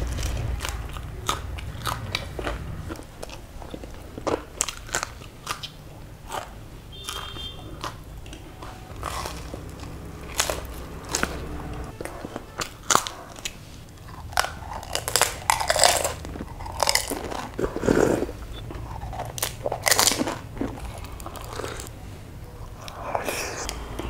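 Close-miked biting and chewing of crisp fried samosa pastry, with irregular crunches and crackles.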